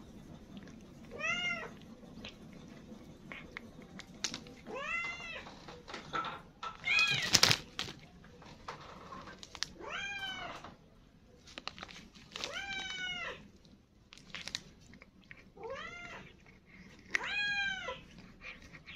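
Domestic cat meowing repeatedly: about seven drawn-out meows, each rising then falling, a couple of seconds apart. Small clicks come between them, and a sudden sharp crackle joins the loudest meow about seven seconds in.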